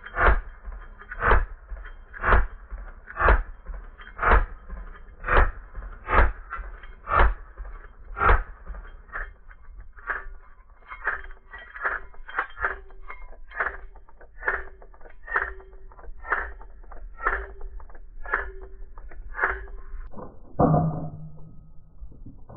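Shots from an 1874 Camel model Gatling gun in slow motion. For the first ten seconds there is a sharp report about once a second. After that come lighter, quicker shots, about two a second, with a steady ringing tone between them. Near the end a different, louder sound cuts in.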